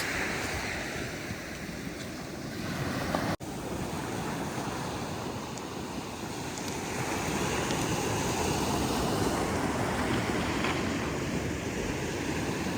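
Ocean surf washing onto a beach, a steady rush that swells and eases, with wind on the microphone. The sound cuts out for an instant a little over three seconds in.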